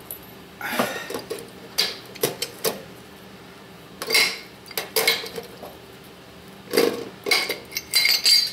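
Metal clinks and scrapes from a pipe wrench turning an old well-pump pressure switch off its threaded standpipe fitting. They come in short bursts, with the loudest cluster near the end.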